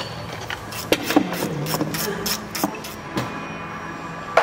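Scattered clicks and knocks of pliers and gloved hands working hose clamps and fittings in a car's engine bay.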